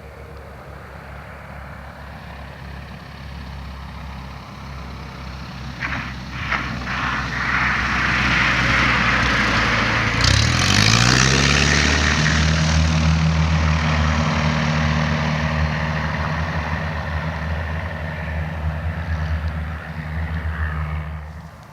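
Cessna Skyhawk's piston engine running, with a few clicks about six seconds in. About ten seconds in, the engine's pitch climbs quickly as the throttle is opened and holds at a steady, higher, louder drone, with a rushing hiss as it goes to power, as for a takeoff.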